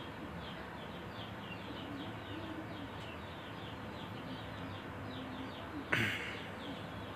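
Birds chirping in the background, a quick run of short falling chirps repeating several times a second, with a few soft low calls mixed in. About six seconds in there is one short scrape or knock.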